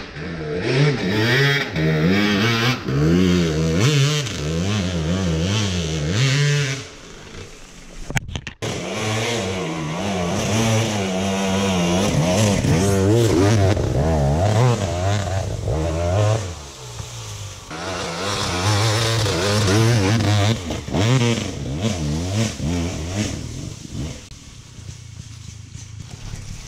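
Dirt bike engines revving up and down over and over, the pitch climbing and dropping with the throttle and gear changes. The sound breaks off sharply about eight seconds in, and it is quieter near the end.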